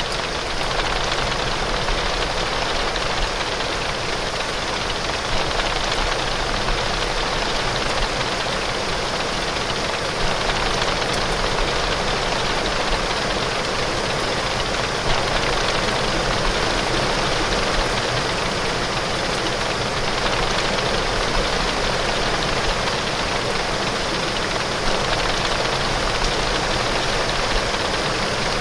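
Heavy rain falling steadily on a window pane, an even, unbroken hiss of drops.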